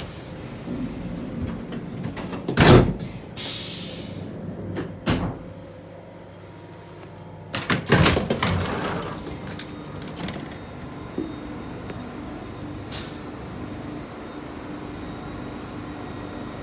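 Passenger door of an APm 61 first-class EC coach opening after its green push button is pressed: a cluster of clunks and a rush of noise about eight seconds in. Sharp knocks sound earlier in the vestibule, short hisses come at about three and a half and thirteen seconds, and a steady low hum runs underneath.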